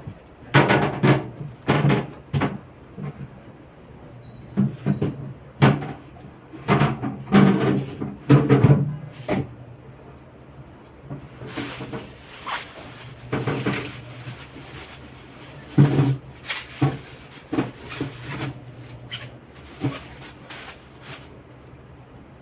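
Fridge shelves and containers being handled: an irregular string of knocks, clatters and thuds as things are moved and set down, over a steady low hum.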